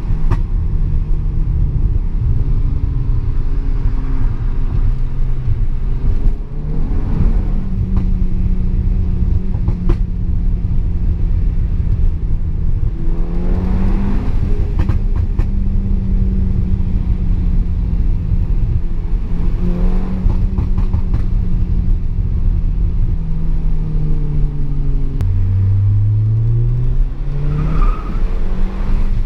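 Audi TT Mk2's tuned 2.0 TFSI turbocharged four-cylinder engine running under load with low road rumble. Its pitch holds steady for stretches and rises several times as it revs up.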